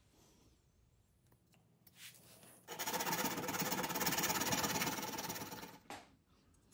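A small motor runs for about three seconds with a fast, even rattle, starting and stopping abruptly, after a few faint handling clicks.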